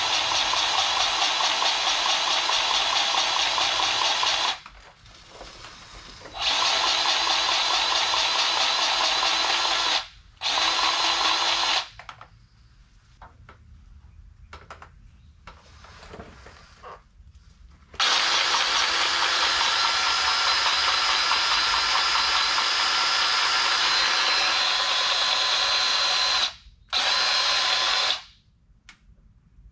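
DeWalt cordless grease gun's motor running in separate bursts as it pumps grease into a driveshaft U-joint's grease fitting. There is a run of about four seconds, one of about three and a half, a short one, a long run of about eight seconds, and a short one near the end, with quiet pauses between them.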